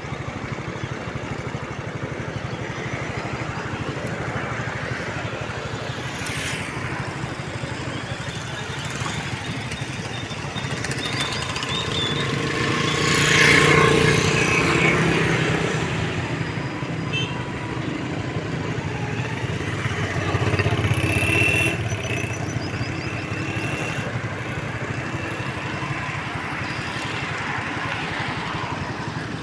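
A small motor vehicle's engine running steadily, with traffic noise. It swells louder twice, at about 13 and 21 seconds in.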